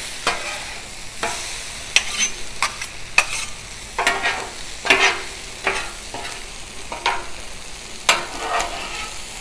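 Two metal spatulas scraping and clacking on the steel top of a Blackstone flat-top griddle, stirring and tossing a shrimp, vegetable and noodle stir-fry, with irregular strokes about once a second. Under them the food sizzles steadily on the hot griddle.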